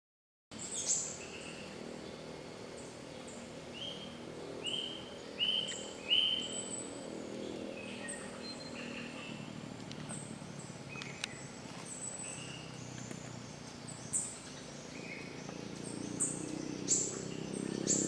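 Short, high bird chirps, repeated every second or two, over a steady forest background.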